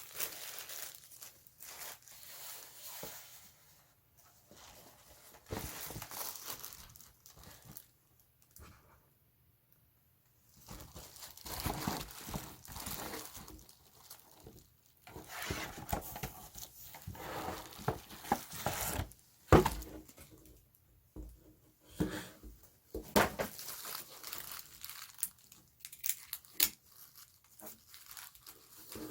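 Hands crinkling and tearing open a phone's packaging, in irregular spells of rustling with sharp clicks. There is a quiet pause of a couple of seconds about a third of the way in, and the sharpest clicks come past the middle.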